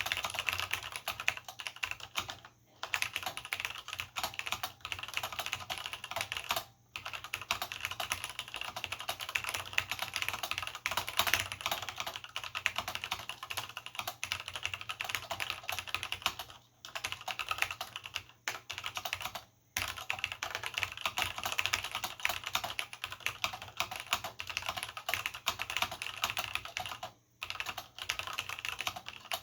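Fast continuous typing on a vintage Cherry G80-0693/c keyboard with linear Cherry MX Black switches and doubleshot keycaps: dense clacking keystrokes, broken by a few brief pauses.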